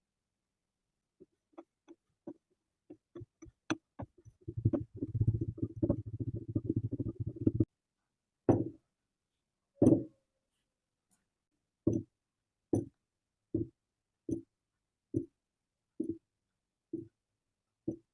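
Kinetic sand being cut with a knife. Scattered light taps give way about four seconds in to some three seconds of dense, crumbly crunching. This is followed by a run of soft, dull thuds at a steady pace, a little over one a second.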